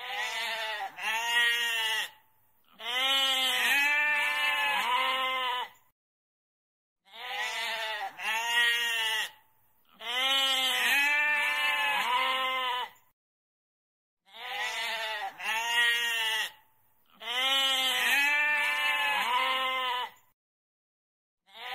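Goat bleating over and over: quavering, wavering calls, some short and some drawn out, in groups separated by brief pauses. The same run of calls repeats about every seven seconds.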